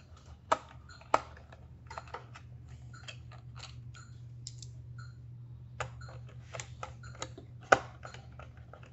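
Irregular light clicks and taps of hands and small tools working on the plastic housing and internal parts of a syringe pump, with one sharper click about three-quarters through. A steady low hum runs underneath.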